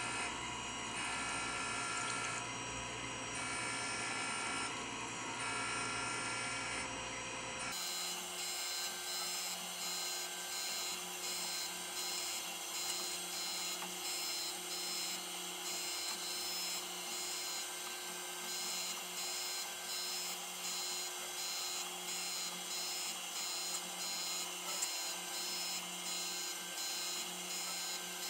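Taft-Peirce surface grinder running a light finishing pass on steel vise jaws under flood coolant: a steady machine hum with several held tones, rising and falling in a regular repeating cycle as the table travels back and forth under the wheel. About eight seconds in, the low part of the hum drops away abruptly.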